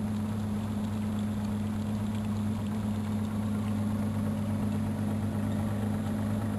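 Motorboat engine running steadily, heard from aboard, a low even hum with a hiss of water and air over it.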